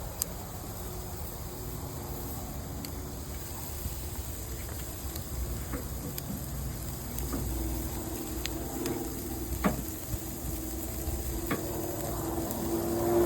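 Meat sizzling steadily on a charcoal grill, with a few sharp clicks scattered through.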